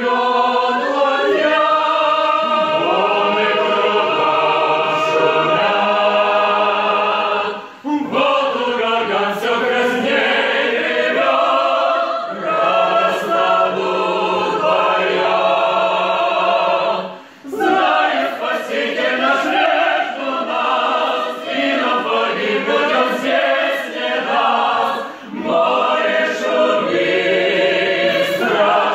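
Mixed choir of men and women singing a hymn a cappella, with short breaks between phrases about 8 and 17 seconds in.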